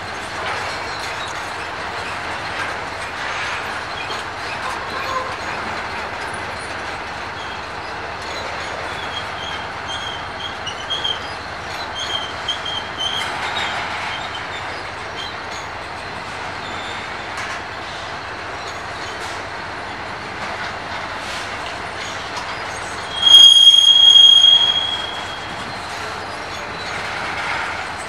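Freight train cars rolling past on steel rails with a steady rumble, their wheels squealing now and then. There is a run of short, wavering squeals around ten to fourteen seconds in, then one loud, piercing squeal lasting about a second and a half near the end.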